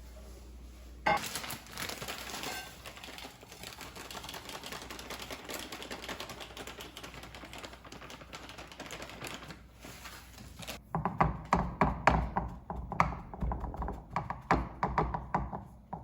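Household cleaning noise: a steady scratchy rubbing sound starts suddenly about a second in and runs for roughly ten seconds, then gives way to a run of quick, irregular clattering knocks.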